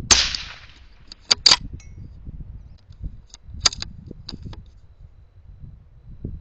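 A single sharp rifle shot right at the start, trailing off over about half a second, then a few short, sharp metallic clicks spread over the next few seconds.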